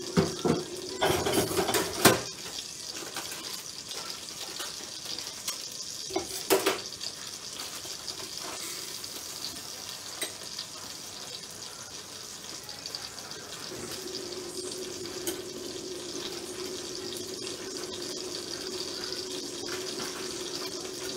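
Kitchen tap running into a sink while lentils are rinsed, with a clatter of knocks against the sink and dishes in the first couple of seconds and again around six seconds in. A low steady hum joins about two-thirds of the way through.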